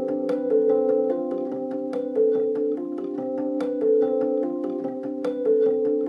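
Fender Rhodes electric piano being played: a repeating figure of quick notes over held chords, the pattern coming round about every second and a half.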